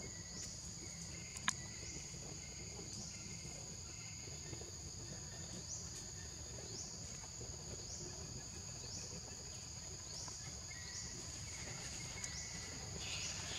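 Insect chorus: a steady high-pitched buzzing, with a short rising note repeating about once a second. A single sharp click sounds about a second and a half in.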